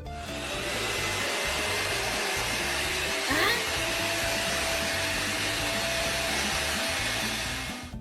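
Steady rushing noise of a motor-driven air blower, with a quick rising squeak a little over three seconds in; it cuts off suddenly just before the end.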